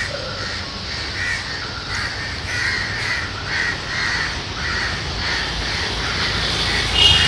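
Crows cawing over and over, a short call about every half second, with a low rumble underneath.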